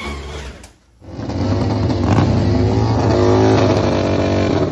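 A drag-racing motorcycle engine fired on a starter and running, cut off about a second in. Then a V-twin drag bike engine running at high revs, loud and steady, its pitch wavering slightly.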